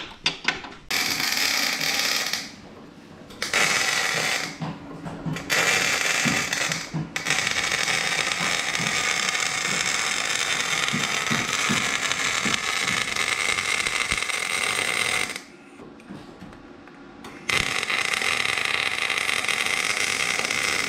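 Electric arc welding on a steel differential housing: runs of steady crackling hiss lasting several seconds each, broken by brief stops between beads and one longer pause of about two seconds near the three-quarter mark.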